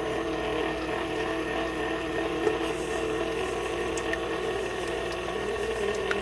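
Electric kitchen mixer motor running steadily, beating oil and sugar together in the bowl, with a steady whirring hum.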